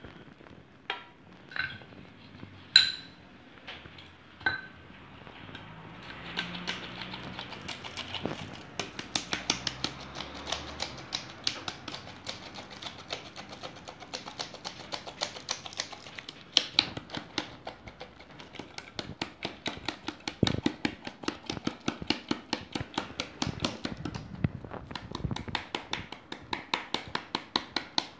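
Metal flour sifter being worked by its handle to dust icing sugar over a baking tray: a fast run of metallic clicks, several a second, starting a few seconds in. It is preceded by a few separate sharper metal clinks, the loudest of them near the start.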